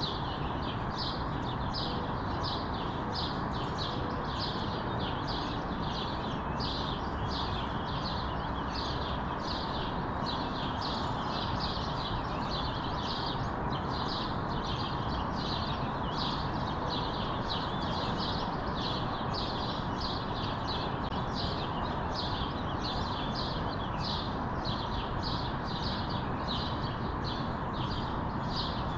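Songbirds chirping, a steady run of short, high chirps about one and a half a second, over a constant background hiss.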